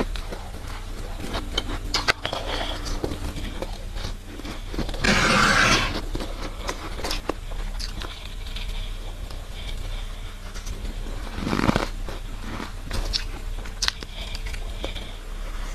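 Close-up crunching and chewing of mouthfuls of powdery freezer frost, with a ceramic soup spoon scraping more frost off the frosted freezer wall. Many small crisp crackles, with a louder, longer crunch about five seconds in and another near twelve seconds.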